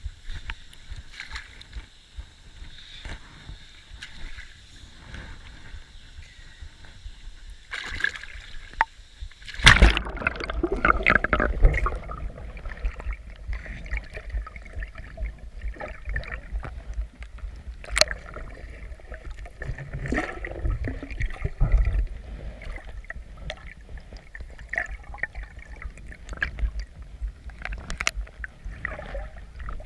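River water sloshing and splashing as someone works in or on the water, starting with a sudden loud splash about ten seconds in, with scattered knocks and a low rumble after it. Before that, a steady high-pitched drone with occasional clicks.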